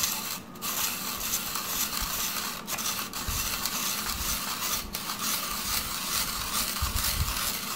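Hand-cranked spiralizer shaving a raw golden beet into ribbons: a steady scraping, shredding rasp as the blade cuts, with a few brief breaks.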